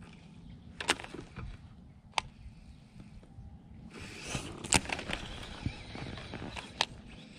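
Handling noise from a baitcasting rod and reel being worked: a few sharp clicks, then a stretch of denser whirring and rustling in the second half.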